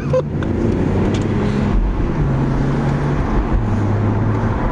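BMW Z4 engine and road noise heard from inside the cabin while driving: a steady drone whose note drops to a lower pitch about three and a half seconds in.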